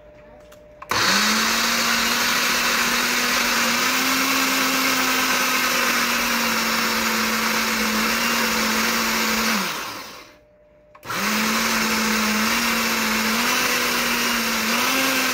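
Ninja countertop blender pureeing chopped okra. The motor starts about a second in and runs steadily, its pitch stepping up slightly. It winds down and stops after about nine seconds, then starts again a second later and keeps running.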